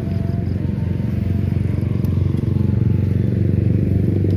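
A small engine running steadily, a low pulsing drone.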